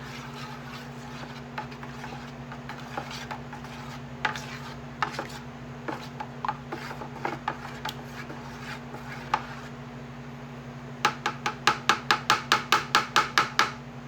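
Wiping down the edges of an epoxy river-table mold: scattered rubbing and scraping strokes, then a quick run of about five strokes a second near the end. A steady low hum runs underneath.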